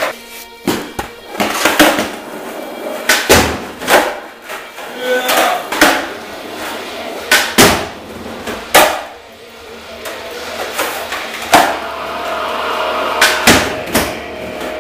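Skateboard tricks on a wooden box over a concrete floor: the board's tail popping, the deck and trucks knocking and sliding on the box, and wheels landing on concrete. The knocks and clacks come about once a second or two.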